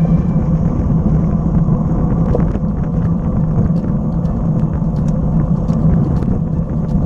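Steady low rumble of wind and road noise picked up by an action camera riding on a bicycle, with scattered light clicks and ticks.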